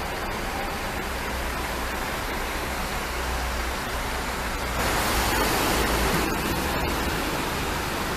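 Steady noisy rumble of diesel coach engines idling close by, with a low hum underneath; the noise swells louder and hissier for about a second and a half some five seconds in.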